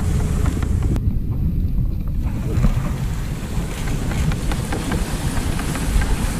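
Wind buffeting the microphone of a camera on a moving dog sled, a steady low rumble, over the hiss and faint ticking of the sled running over packed snow. The hiss above the rumble briefly drops away about a second in.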